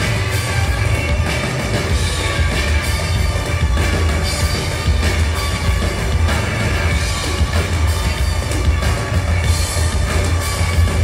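Live band playing loud, full music: bass guitar, electric guitar, keyboards and drum kit, with a heavy bass line and crashing cymbals.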